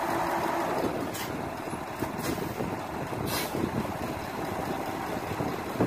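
Diesel engine of a Nissan Diesel (UD) dump truck running while its raised tipper bed dumps a load of sand, with three short hisses about a second apart.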